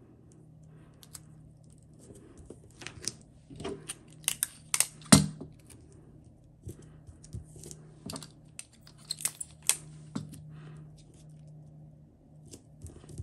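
Paper pattern sheets being handled and joined with clear tape: a string of quick taps, crackles and tape sounds, loudest about five seconds in.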